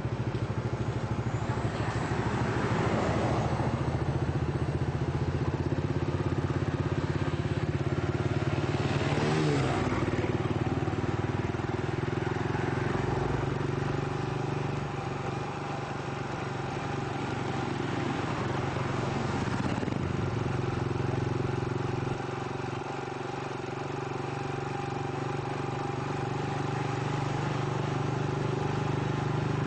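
A vehicle's engine running steadily while driving, with road noise. Other traffic passes by three times, the nearest about nine to ten seconds in.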